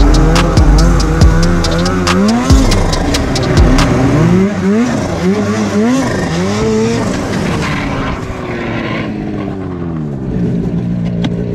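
Polaris Khaos 850 turbo two-stroke snowmobile engine revving up and down over and over while riding, with sharp clicks in the first few seconds. About eight seconds in, the revs fall away and it settles to a steadier low note.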